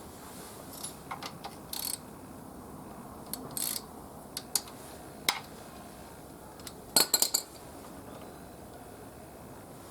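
Metal tools and parts clinking and clicking as they are handled, in scattered single knocks with a quick run of four or five louder clinks about seven seconds in.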